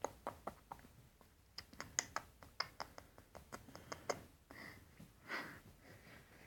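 A run of faint, quick light clicks, about five a second, that stops about four seconds in.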